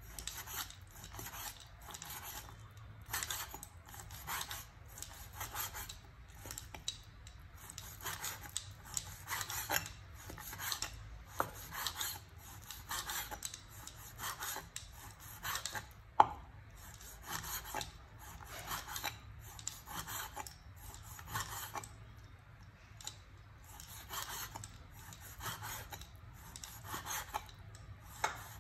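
Cleaver slicing raw pork on a wooden cutting board: a steady run of cutting strokes, about one to two a second, as the blade draws through the meat against the board, with one sharp knock of the blade on the board about halfway through.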